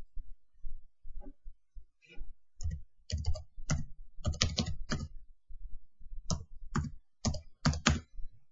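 Computer keyboard keys tapped one at a time as a number is entered: about a dozen separate keystrokes, with a pause of about a second partway through.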